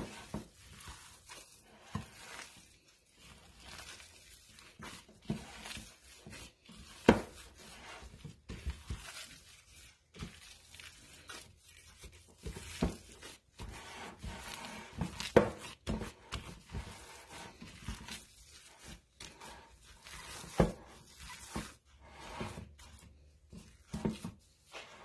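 Gloved hands squeezing and kneading raw ground meat mixture in a ceramic bowl: irregular wet squishing and the crinkle of the disposable plastic gloves, with scattered sharp knocks throughout.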